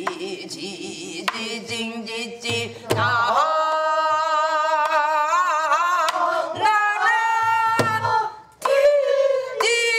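A woman singing in Korean traditional style, holding long notes with a wide wavering vibrato, broken by a few low drum strokes and sharp knocks.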